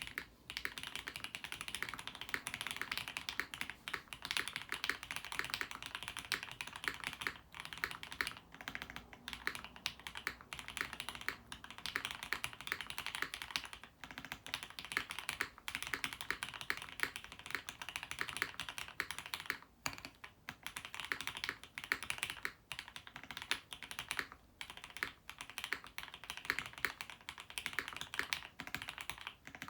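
Mode Sonnet custom mechanical keyboard with lubed Gateron CJ linear switches, a top-mounted FR4 plate with plate foam, and GMK Red Dragon ABS keycaps, typed on quickly and steadily with a few brief pauses.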